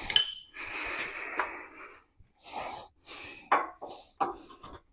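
Scuffing noise, then a few short, light knocks and clicks as a chisel is worked into the bolt holes of a steel truck frame rail to pull them into alignment.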